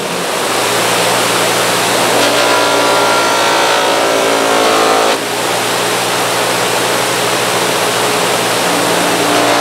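Electric bench buffer running at low buffing speed, its cloth wheel spinning with a steady hum. Work is pressed against the wheel from about two seconds in to about five seconds in, and again near the end, which adds a louder rubbing whine.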